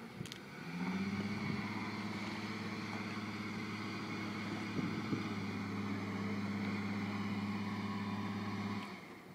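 Acura SUV's engine working under load as it pulls a boat trailer up a launch ramp. The engine note rises about a second in, holds steady, then drops away shortly before the end.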